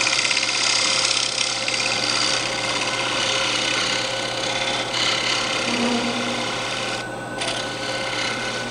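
Half-inch negative rake scraper cutting a spinning wooden dish on a Robust wood lathe: a steady hissing, scraping shave over the lathe motor's hum, a light finishing cut that throws off long shavings. The cut lifts off briefly about seven seconds in, then resumes and stops near the end.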